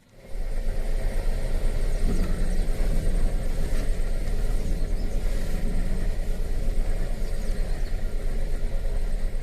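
Honda Life kei car running, a steady low rumble.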